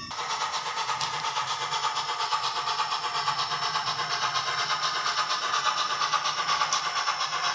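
Soundtraxx Tsunami digital sound decoder in an N-scale New York Central 4-8-2 Mohawk model playing steady, rapid steam-exhaust chuffs through its small onboard speaker as the locomotive runs, several chuffs a second over a low hum.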